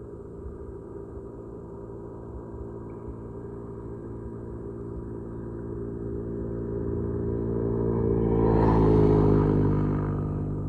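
A motor's steady low hum that grows louder, peaks with a rush of noise about nine seconds in, then begins to fade, as of an engine passing close by.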